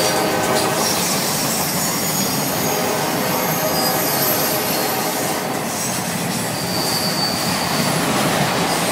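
CSX freight train of autorack cars rolling past close by: a steady rolling noise of steel wheels on the rails, with thin high wheel squeals coming and going.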